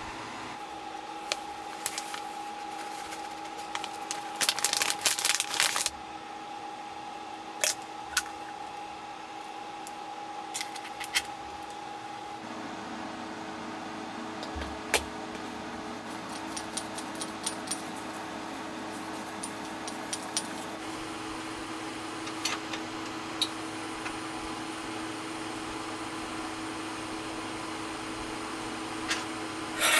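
Packaging rustling about four seconds in, then scattered light clicks and taps of items handled on a table, over a steady electrical hum; one tone in the hum stops about twelve seconds in.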